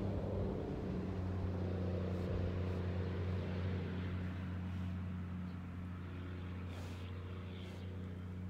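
A steady low engine hum, as of a motor vehicle running, slowly fading near the end, with a couple of soft clicks about seven seconds in.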